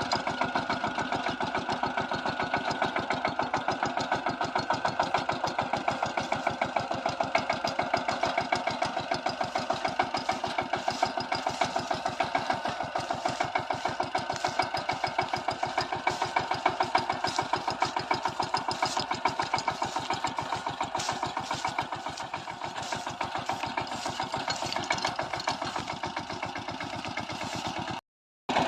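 Kamco power tiller's single-cylinder diesel engine running steadily while ploughing with dry-land tynes, a rapid even chugging. The sound drops out for about half a second near the end.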